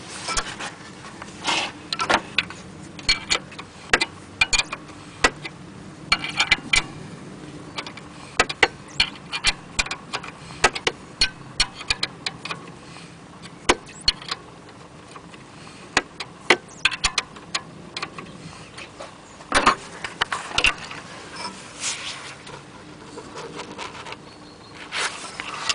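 Irregular metallic clicks and clinks of a wrench on the bolts while the alternator is tensioned against a new drive belt.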